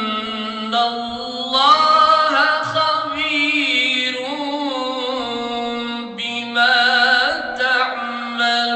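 A group of men chanting together in a mosque: a steady held low note runs beneath a wavering, ornamented melody that rises and falls. The melody swells louder about two seconds in and again near the end.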